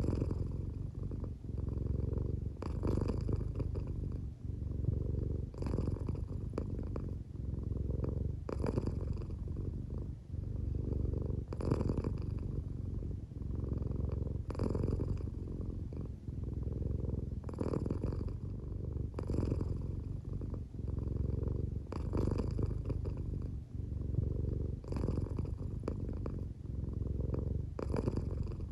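American Shorthair cat purring steadily and low, the purr swelling brighter and breathier about every three seconds with each breath. The cat is drowsy, half asleep, and the purr may be partly snoring.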